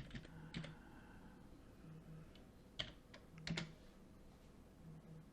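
A few faint, scattered computer keyboard keystrokes.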